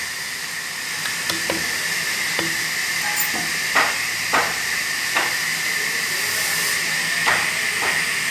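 A steady hiss, with light knocks and taps at irregular moments, the strongest a little under four seconds in and again about half a second later.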